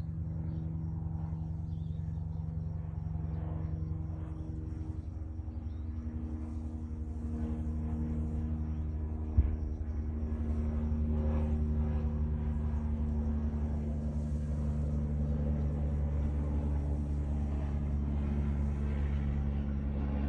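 A steady low mechanical hum, like a motor or engine running, whose pitch shifts slightly now and then, with one sharp click about nine seconds in.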